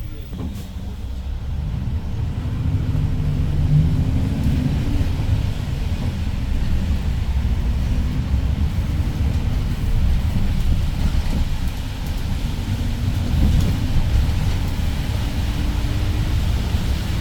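Daewoo BS090 city bus driving, with its CNG engine running under a steady low road rumble. The engine note rises and falls, and the sound grows louder about two seconds in.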